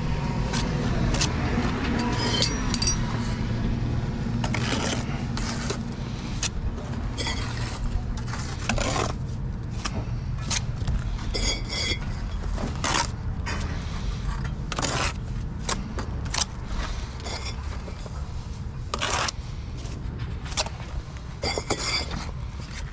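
Steel brick trowel working mortar and laying bricks: repeated scrapes of the blade and sharp clinks and taps as bricks are set down and tapped in, a few of them ringing briefly. A steady low rumble runs underneath.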